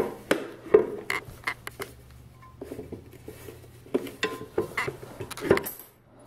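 Exhaust muffler and metal bike parts clinking, tapping and rattling in irregular knocks as the muffler is handled and offered up against a dirt bike's frame. There is a brief metallic ring once or twice.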